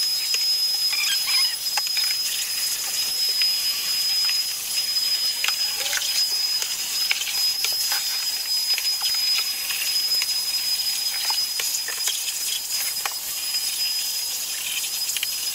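Vacuum cleaner running steadily: a loud hiss of rushing air over a thin, high, steady motor whine, with scattered small ticks.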